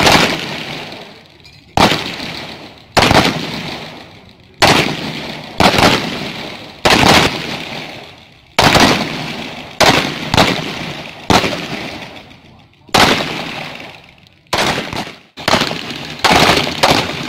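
Gunfire: a string of about fifteen single shots, spaced irregularly from about half a second to a second and a half apart, each ringing off in a long decaying echo.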